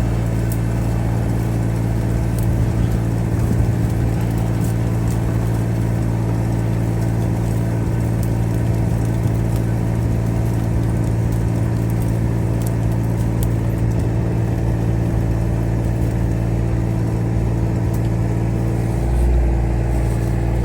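A vehicle engine running steadily at an unchanging speed.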